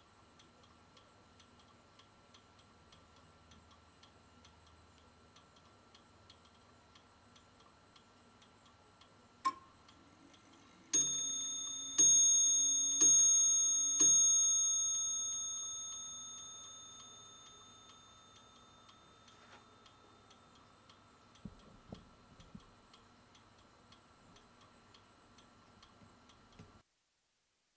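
Guilmet statue swinger mystery clock ticking steadily and faintly. A sharp click comes, then the clock strikes four times, one stroke a second, each stroke ringing on and fading away over several seconds.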